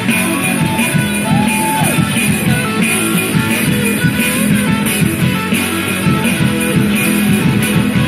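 Small rock band playing a song live: electric guitars through small amps, bass guitar and drums, loud and steady, with one held note sliding up and back down about a second in.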